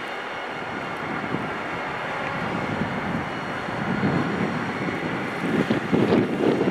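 A train running past: a steady rumble that grows louder near the end, with wind on the microphone.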